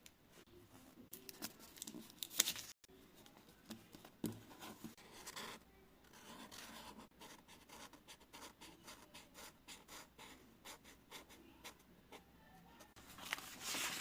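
Paper being handled in craft work: light scratching and rustling of paper with many small taps and strokes, louder near the end.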